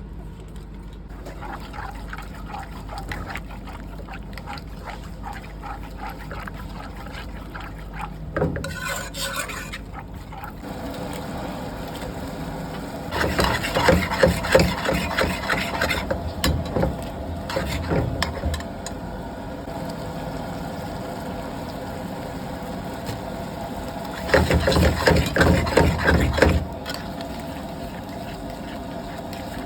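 Cooking at a food stall: utensils scraping and clattering against a pan over a steady background hum, loudest in two spells, one about halfway through and one near the end.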